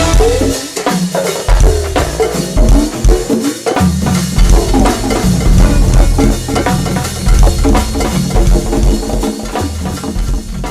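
Live go-go band playing an instrumental groove: a steady drum-kit and percussion beat over a bass line, with keyboard or horn lines above.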